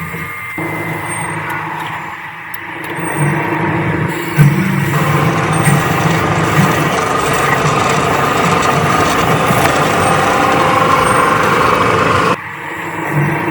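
Large metal lathe machining steel: a steady cutting and grinding noise from the tool working the turning workpiece, which stops abruptly near the end.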